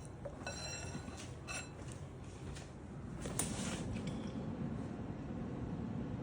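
Kitchenware clinking: a ringing clink about half a second in, a second shorter clink, then a sharp knock about halfway through, followed by low rustling.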